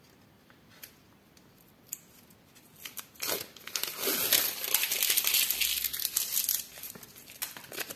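Paper backing being peeled off a piece of fusible interfacing and crumpled in the hand. A few faint paper clicks, then from about three seconds in several seconds of loud crinkling, tearing paper rustle that fades near the end.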